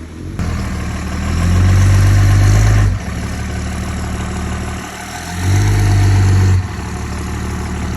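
A large engine running steadily, revving up twice for a second or so each time and dropping back.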